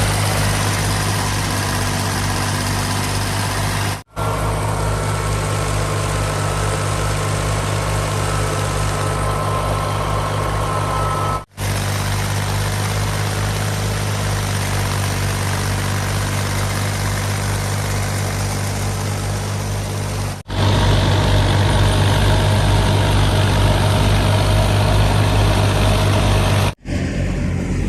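Fiat 480 tractor's diesel engine running steadily under load, driving a wheat thresher, whose rushing, rattling noise mixes with the engine drone. The sound breaks off briefly four times, where separate clips are joined.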